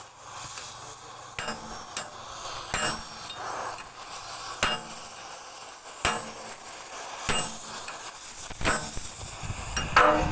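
Oxy-acetylene cutting torch hissing steadily as it cuts through a seized steel bolt on an excavator bucket, with sharp metal knocks every second or so.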